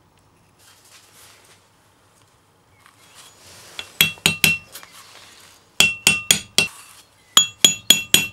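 Hammer striking a seal driver to seat a new inner grease seal in a Dodge Ram front wheel hub. After some faint handling noise, three quick runs of four or five ringing metal blows start about four seconds in.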